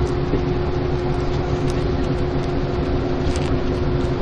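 Cabin noise of a coach bus travelling at highway speed: a steady drone of engine and road noise with a constant low hum.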